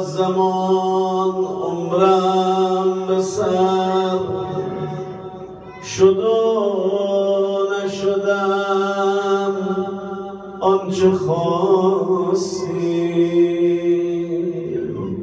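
A solo male voice chanting a Persian mourning elegy (maddahi) unaccompanied into a microphone, in long, drawn-out, wavering notes over several phrases.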